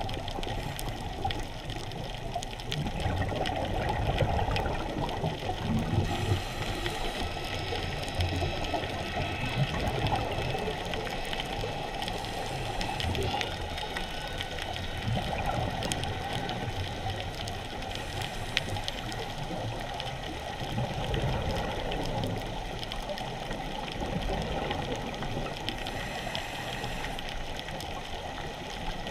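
Steady, muffled rush of underwater ambient noise picked up by a camera in its waterproof housing while diving along a reef.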